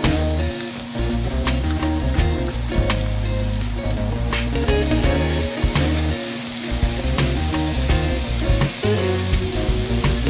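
Sliced beef sizzling and frying in a hot wok as it is stirred with a wooden spatula. Background music with a moving bass line plays throughout.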